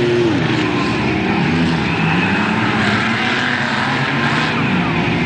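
Engines of several junk cars running and revving together in a short-track race. Their pitches rise and fall over one another as they throttle through a turn.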